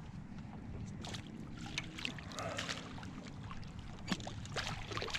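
Shallow water splashing and sloshing, with scattered small clicks and a steady low rumble underneath.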